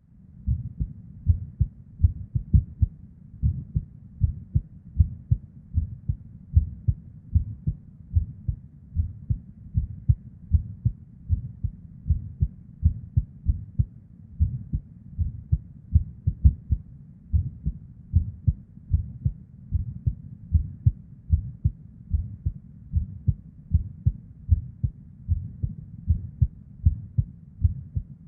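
A woman's irregular heartbeat, recorded close to the heart: a continuous run of low, dull thumps, often in close pairs, with a soft low whooshing of blood flow (murmur) between them. The irregularity comes from ectopic beats (PVCs).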